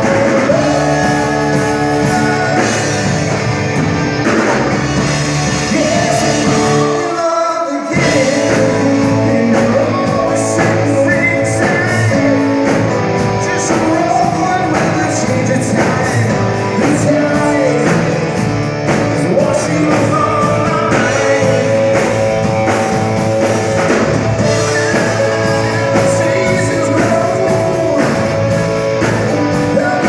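Live rock band playing loudly on electric guitars, bass and drums, with the low end dropping out for a moment about seven and a half seconds in before the band comes back in.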